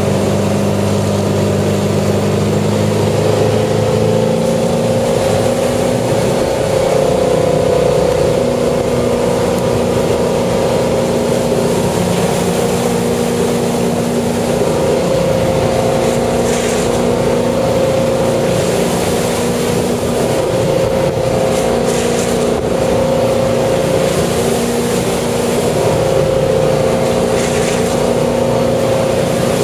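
Ski boat's engine running steadily at towing speed, with the rush of water and wake. Its low note changes about four seconds in.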